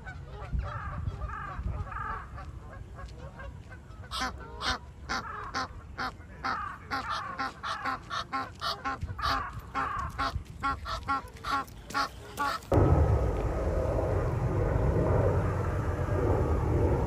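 Egyptian goose calling, a long run of rapid, harsh honks several a second. About thirteen seconds in, the calls give way to a louder steady rushing noise with fainter calls.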